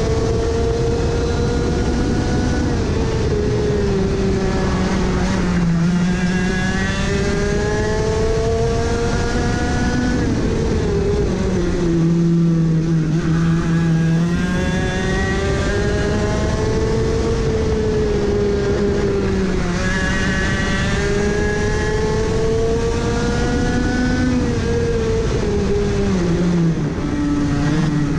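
Onboard sound of a racing kart's two-stroke engine at full race pace. Its pitch climbs steadily along each straight and drops sharply several times as the driver lifts and brakes into corners, over a constant rush of wind and tyre noise.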